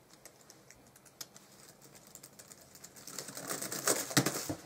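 Typing on a laptop keyboard: a few scattered keystrokes at first, then a quick run of rapid key clicks from about three seconds in.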